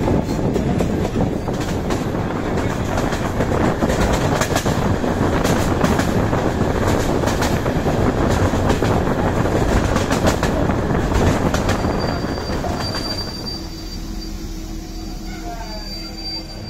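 Passenger train coach running on the rails, wheels rumbling with many short clicks and clatters. About twelve seconds in the rumble drops away and a steady high squeal comes in over a lower hum as the train brakes for a station stop.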